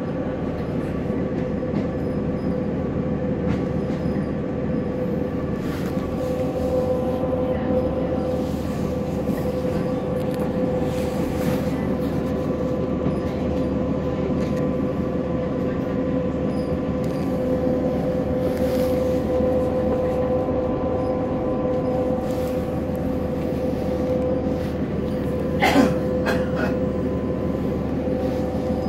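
Passenger train running at speed, heard from inside the carriage: steady rumble with a constant whine. Near the end comes a brief louder clatter.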